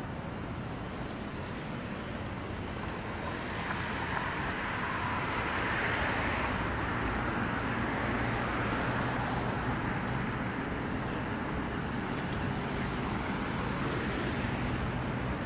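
City street traffic noise, steady, swelling as a vehicle goes by a few seconds in and then easing off.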